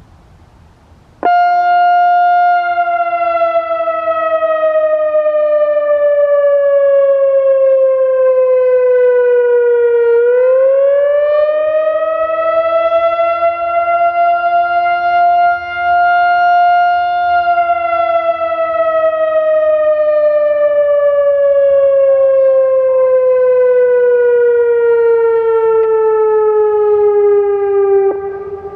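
Loudoun Communications ES-2000 electronic outdoor warning siren sounding its Attack signal, a loud wavering siren tone. It comes in abruptly about a second in and slides slowly down in pitch, rises back up around the middle and holds there, then slides slowly down again, dropping in volume near the end.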